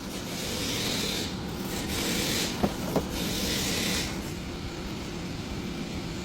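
Three rubbing, scraping strokes with two sharp clicks between them, of the kind a worn shock-absorber mount makes as the suspension is worked, over a steady low hum.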